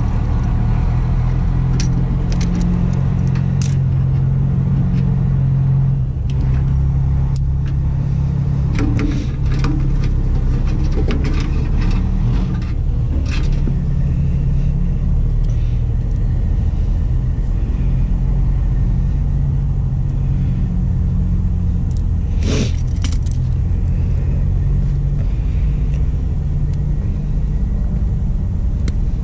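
Steady low rumble of an idling engine, with scattered small metallic clicks and clinks of crimping pliers and wire connectors being handled; the sharpest click comes a little past two-thirds through.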